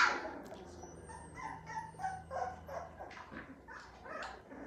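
A litter of American pit bull terrier puppies yipping and whimpering in short, high little calls, starting with one loud, sharp yip.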